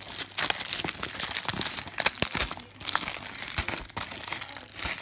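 Cellophane shrink-wrap on a DVD case crinkling as hands handle and peel it: a dense run of crackles and rustles, with the loudest snaps about two seconds in.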